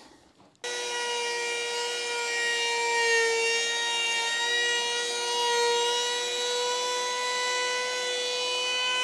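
Trim router with a roundover bit running and cutting along the edge of a drawer face. It is a steady high whine that starts about half a second in, its pitch wavering slightly as the bit takes the cut.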